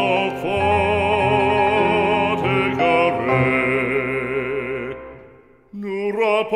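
Background music: a French hymn sung with strong vibrato on long held notes. It fades out about five seconds in, and the music comes back abruptly shortly after.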